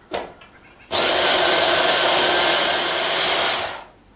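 Hand-held stick blender running for about three seconds, blitzing romesco sauce in a jug after the olive oil has gone in, then switched off. A light knock comes just before it starts.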